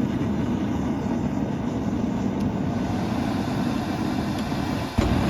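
Gas forge burner running with its forced-air valve opened all the way, a steady rushing noise. About five seconds in it jumps suddenly louder and deeper.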